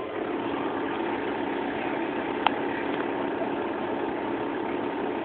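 Blackjack gaming machine playing a steady electronic drone while a win transfers to its credit meter. It starts just after the button press and stops about five seconds later, with one sharp click about two and a half seconds in.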